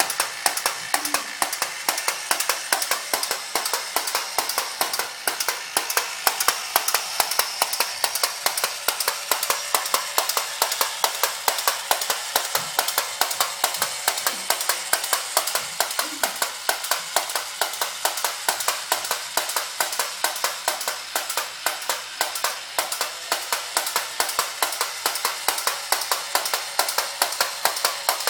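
Vintage tin toy tugboat running, its mechanism giving a steady, rapid clicking of about four clicks a second.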